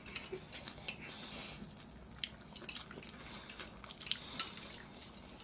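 Metal chopsticks clicking and tapping against a ceramic bowl, light scattered clicks with one sharper tap near the end.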